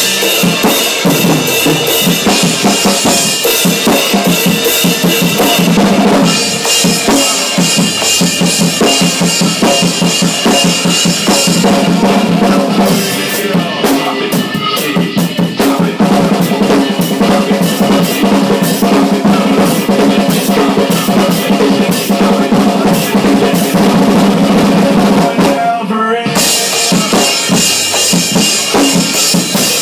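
Acoustic drum kit played hard with drumsticks: bass drum, snare and toms under a constant wash of crashing cymbals. Around the middle the cymbals ease off and the single hits stand out more, and about 26 s in the playing stops for a moment before starting again.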